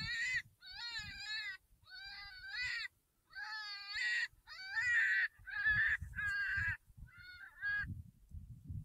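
Electronic predator caller playing a prey distress sound: a run of short, wavering, high-pitched cries, about one a second. A low rumble sits beneath them in the second half.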